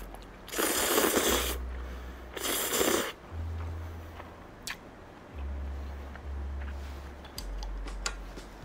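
A person slurping stir-fried ramyun noodles twice, each slurp about a second long, followed by a few light clicks as eating goes on.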